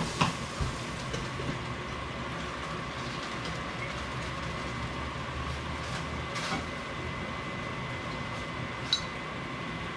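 Steady mechanical hum of a kitchen fan with a faint whine. A few light clinks and knocks of cookware come near the start, about six and a half seconds in, and near the end.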